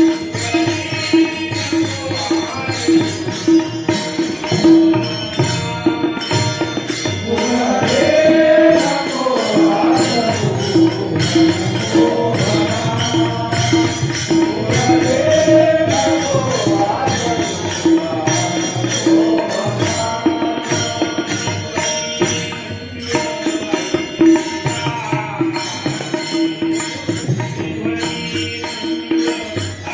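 Marathi devotional gavlan music: a steady drone with rhythmic hand percussion and jingles, and a melodic line that swells up and falls back twice.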